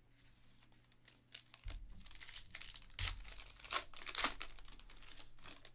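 A trading card pack's foil wrapper being torn open and crinkled by hand, in a run of crackles that is loudest in the middle, with a couple of dull bumps.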